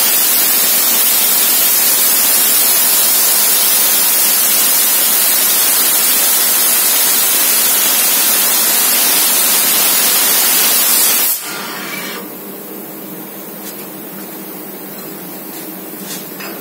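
4000 W laser cutter cutting 10 mm stainless steel plate: a loud, steady hiss of the assist-gas jet and the cut, which stops suddenly about eleven seconds in, leaving a much quieter machine background with a few faint clicks.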